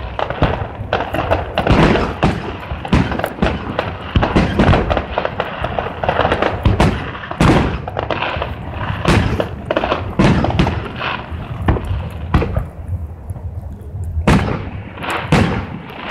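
Fireworks display going off: a rapid, loud barrage of bangs and booms, several a second, with a short lull about three quarters through before the bangs resume.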